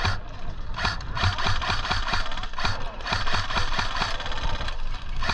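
Airsoft guns firing in quick strings: a dense mechanical rattle broken by many sharp cracks.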